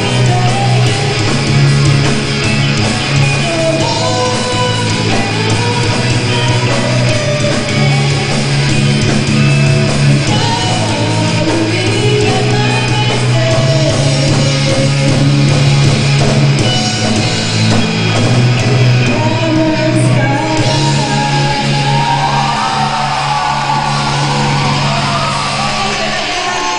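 Rock band playing live, with a lead singer over electric guitar, bass guitar and drums.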